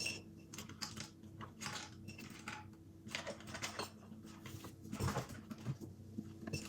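Light, irregular clicking and clattering of paintbrushes being handled and picked out, with one louder knock about five seconds in.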